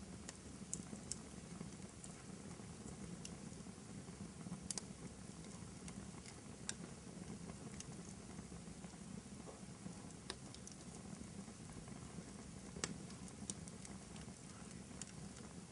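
Fireplace crackling: irregular sharp pops and snaps, a few louder than the rest, over a steady low background.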